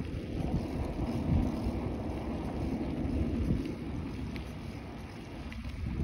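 Wind buffeting the microphone: an uneven, gusty low rumble.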